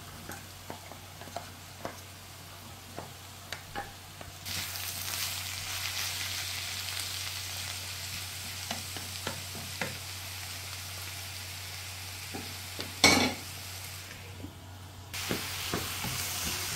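Diced zucchini frying in a non-stick pan and stirred with a wooden spatula. Light scattered taps at first, then a steady sizzle from about four seconds in, with one sharp knock of the spatula on the pan about thirteen seconds in. The sizzle drops out briefly and comes back near the end.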